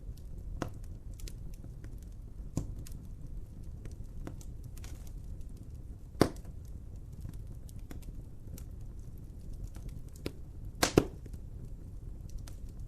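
Wood fire crackling over a low steady rumble, with scattered pops: one sharp pop about six seconds in and a quick cluster of loud pops near the end.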